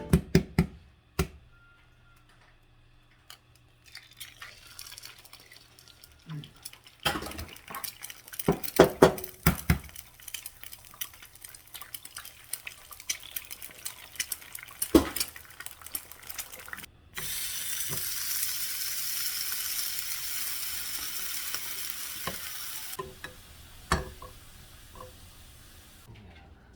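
Kitchen cooking sounds: utensils and dishes clicking and knocking, then, about two-thirds of the way in, a steady hiss for several seconds that cuts off abruptly and gives way to a fainter hiss.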